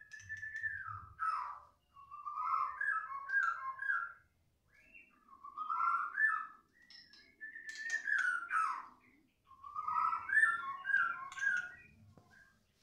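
White-rumped shama song: five varied whistled phrases, each about two seconds long, separated by short breaks.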